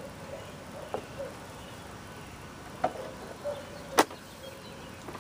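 Quiet outdoor background with three sharp clicks or taps, about one, three and four seconds in, the last the loudest, over faint short chirps.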